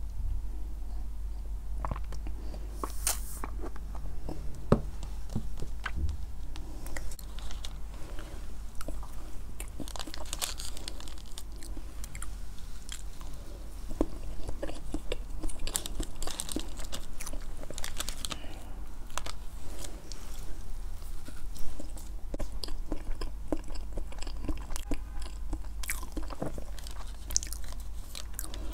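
Close-miked chewing and wet mouth sounds of someone eating soft chiffon cake with whipped cream and sipping a blended iced drink, full of small irregular clicks, over a low steady hum.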